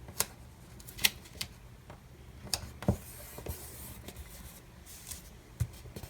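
Paper sticker being handled and pressed onto a planner page: scattered light taps and clicks, with a brief papery rustle about three seconds in.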